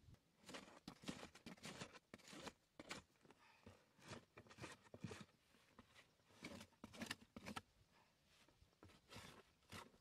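Faint, irregular scrapes, rustles and taps of hands handling a cardboard box and a tool on grass, a dozen or so short noises spaced unevenly.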